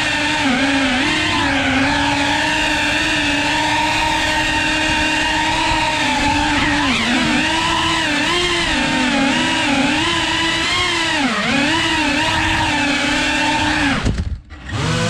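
Small FPV drone's motors and propellers whining steadily, the pitch wavering up and down with the throttle. Near the end the whine briefly drops away as the throttle is cut, then spools back up with a rising pitch.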